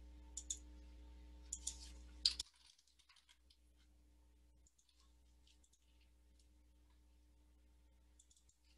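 Faint clicks of a computer mouse and keyboard, a few at a time, over a low steady electrical hum that cuts off about two and a half seconds in.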